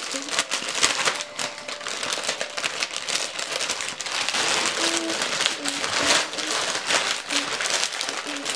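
Clear plastic packaging bag crinkling and rustling as it is handled and pulled open, a steady run of small sharp crackles.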